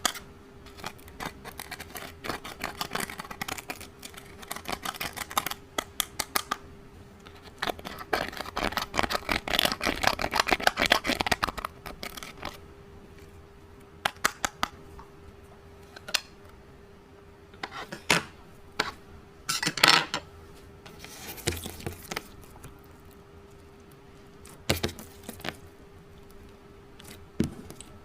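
Clear slime being worked by hand with eyeshadow, makeup and glitter mixed in: rapid sticky clicks and crackles, densest for a few seconds in the middle, then scattered single pops. A faint steady hum lies underneath.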